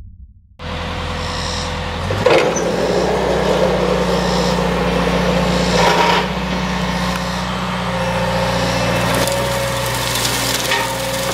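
Hydraulic brush cutter on a John Deere 130G excavator, running steadily as it cuts through brush, with the excavator's engine underneath. Starts suddenly about half a second in, with a few sharp cracks of wood snapping, the loudest about two seconds in.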